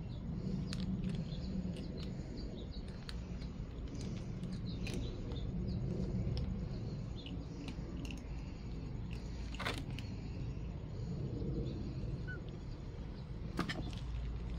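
Outdoor background of scattered short bird chirps over a steady low rumble, with a couple of sharp clicks in the second half.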